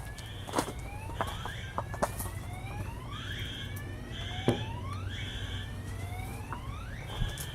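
Home fire alarm system sounding in a test: several alarm devices give overlapping, repeated rising whoop tones, with short high beeps between them. A few sharp clicks of footsteps sound in between.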